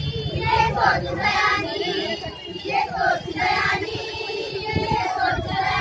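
Group of young women singing a song together, with held notes.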